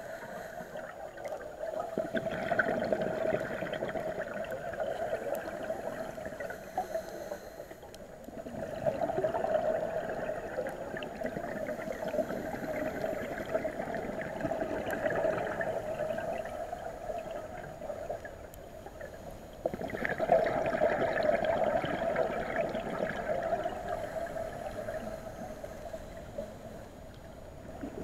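Scuba diving regulator breathing and exhaled bubbles, a continuous gurgling that swells and fades in long waves, rising sharply again about twenty seconds in.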